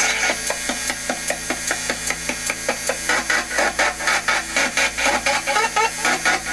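Ghost box (FCD box) sweeping through radio stations: rapid choppy bursts of static and broken radio fragments, about six a second.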